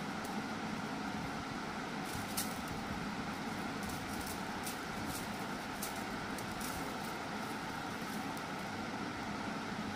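Steady mechanical hum in the room, with a few faint light clicks from the dry stick-broom sticks and plastic strip being handled as the strip is woven between the sticks.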